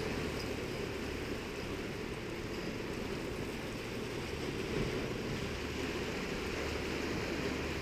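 Steady roar of wind and sea surf below a granite sea cliff, an even rushing noise with no distinct events.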